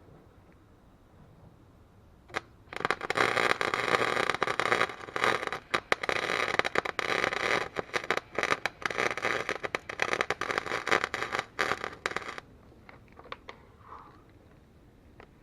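Wire-feed welder arc on the thin steel of a snowblower auger blade: a click a couple of seconds in, then about ten seconds of steady crackling and sputtering that stops abruptly, run with the heat and wire speed turned down for the thin metal.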